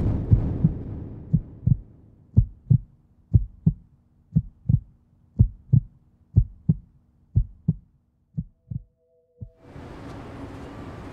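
Heartbeat sound effect: paired low thumps, lub-dub, about once a second, growing fainter over time. A rumbling explosion dies away under the first two beats, and a soft ambient music pad comes in near the end.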